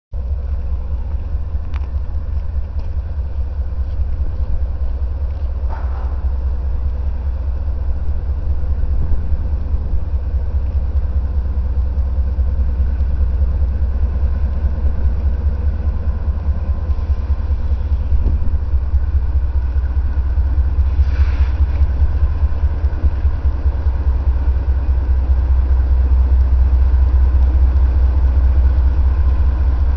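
Diesel freight locomotives running slowly through a rail yard, a steady deep engine rumble that grows a little louder as the consist draws nearer.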